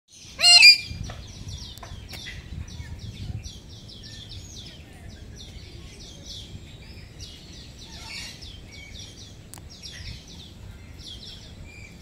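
Aviary birds chirping in a dense, continuous chatter of short high notes, with one loud harsh squawk about half a second in.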